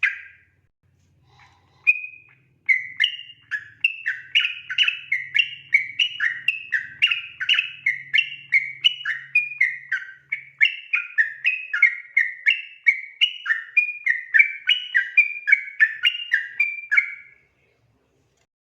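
Sooty-headed bulbul (trucukan) singing a long 'ropel' run: a quick unbroken string of whistled, chirping notes, about three a second, starting a couple of seconds in after a single note and stopping shortly before the end.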